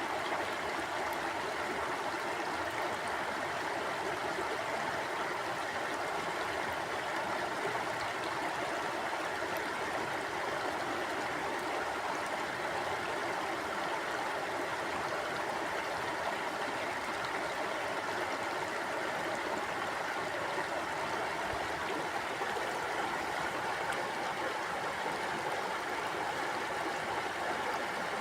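Mountain stream flowing over rocks: a steady rush of water with no change.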